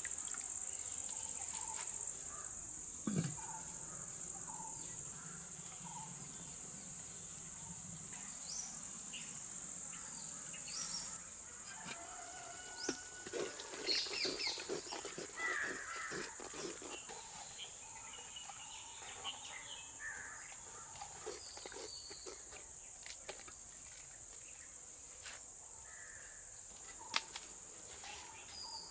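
A steady high-pitched insect drone with scattered bird chirps. A wooden spoon stirs and scrapes in a clay pot of simmering fish curry, busiest around the middle, and there is one sharp click near the end.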